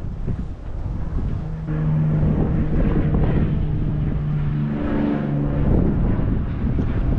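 An engine running with a steady hum that shifts pitch slightly, growing louder about two seconds in, with wind buffeting the microphone.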